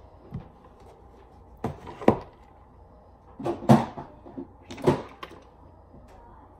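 Rummaging among makeup products: a handful of sharp knocks and clatters as cases and containers are moved about and handled, the loudest about two seconds in and again just under four seconds in.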